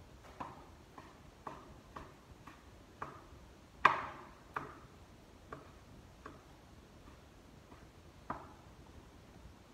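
Large kitchen knife chopping food, the blade knocking down on the board about twice a second, with one much harder knock about four seconds in.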